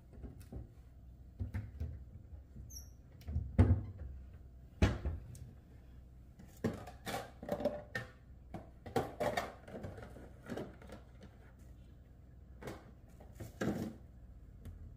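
Irregular knocks, clicks and clatter of dishes, containers and a spoon being handled as food is dished up, the sharpest knocks about three and a half and five seconds in.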